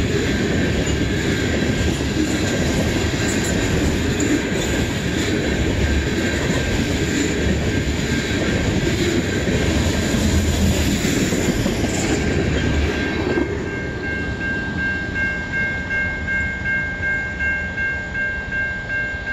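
Freight train of loaded tank cars rolling past close by, steel wheels rumbling and clicking over the rail joints. About 13 seconds in it gives way to a grade-crossing warning bell ringing about twice a second as the train moves off.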